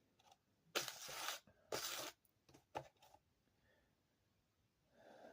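Two short rustling or scraping noises about a second in, followed by a few faint clicks.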